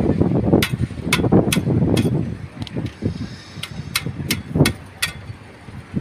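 Sharp metallic clinks, about ten at irregular spacing, as a steel trowel knocks against the reinforcing bars while wet concrete is worked into a slab's rebar mesh, over a low, uneven rumble.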